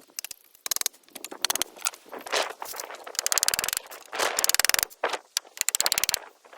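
A power tool hammering in three short bursts of rapid, even knocks, each under a second long, with scattered knocks and scraping before them.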